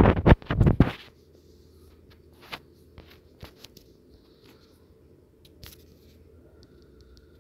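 A phone handled close to its own microphone: about a second of loud scraping and rustling, then a few faint clicks and taps over a low steady hiss.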